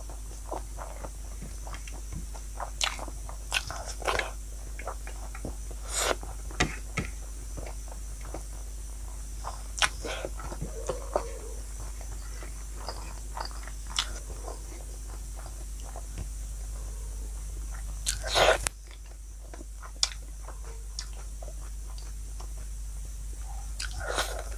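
Eating close to the microphone: irregular crunches, bites and chewing, with a louder burst of crunching about eighteen seconds in, over a steady low hum.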